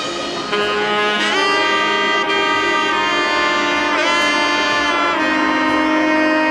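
Background music of long held notes that change pitch a few times, with one short bend in pitch around four seconds in.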